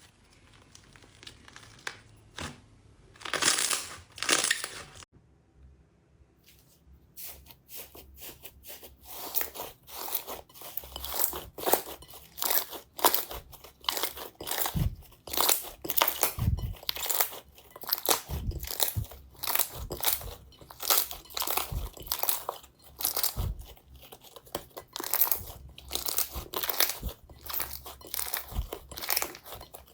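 Slime being squeezed and pressed by hand. It starts quietly, with two short louder rustling bursts about three to four seconds in. From about seven seconds there is a fast, dense run of crunchy crackles and pops.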